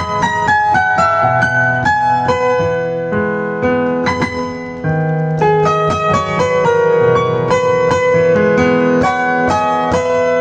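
Piano with a Yamaha CFX grand piano sound, playing a melody over held chords, with new notes struck several times a second.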